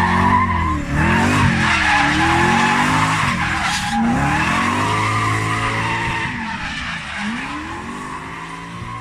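A drift car's engine revs up and down repeatedly over a continuous tyre squeal as the car slides sideways with its rear tyres spinning and smoking. It fades toward the end as the car moves away.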